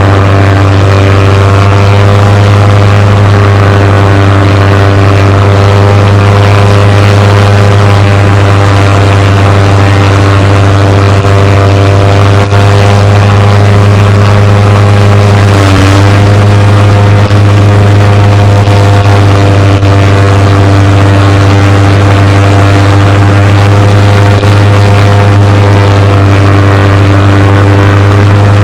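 Propeller plane's engine running steadily, a loud continuous drone with a deep hum and several steady overtones. About halfway through, the pitch briefly dips and recovers.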